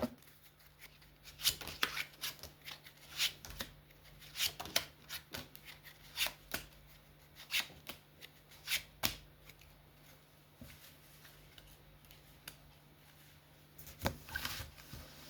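Tarot cards being handled on a table: a run of irregular crisp card flicks and taps, thinning out for a few seconds before a few more near the end.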